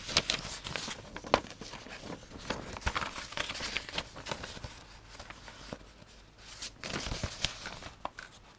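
Paper instruction sheet rustling and crinkling as it is handled and its pages turned, with irregular crackles and small sharp clicks.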